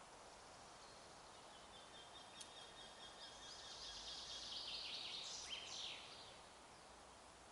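Faint songbird singing a run of rapid, high repeated notes that ends in a couple of quick falling notes, over a steady low hiss of wind in the forest.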